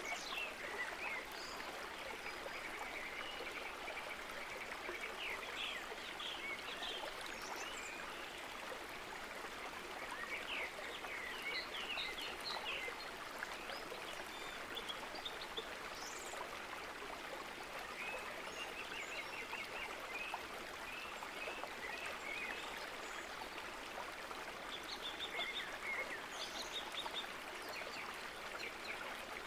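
Steady rushing of flowing water, like a stream, with clusters of short, high chirping calls every few seconds.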